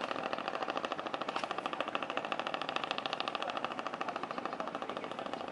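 An engine running with a fast, even chatter of many pulses a second, steady throughout.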